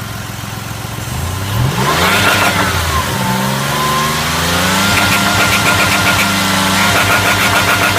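2002 Ford Escape's 3.0-litre V6 revving up, dipping and climbing again, then held high with a rapid rhythmic pulsing over the engine note. This is the fault at around 3,500–4,000 rpm that the owner likens to excess pressure building inside the engine and venting, with power dropping sharply.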